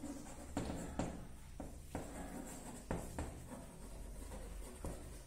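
Chalk writing on a blackboard: irregular light taps and short scratchy strokes as letters are chalked up.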